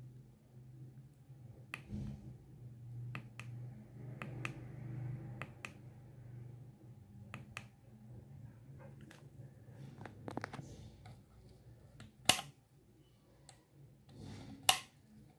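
Scattered light clicks of a finger pressing the buttons on a pocket oscilloscope, then two louder, sharp clicks near the end as the capacitance meter's rotary range switch is turned.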